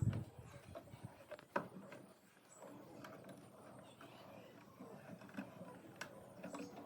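Faint, scattered knocks and taps, the loudest right at the start and another about a second and a half in, with a few lighter clicks later.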